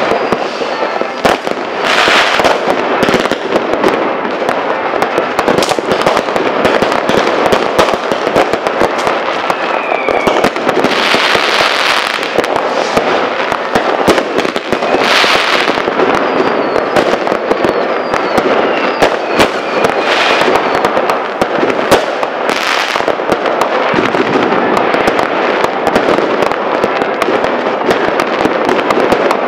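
New Year's Eve fireworks going off thick and fast: a dense, uneven barrage of bangs and crackling firecrackers with no let-up, swelling into brighter crackle several times, and a few brief whistles.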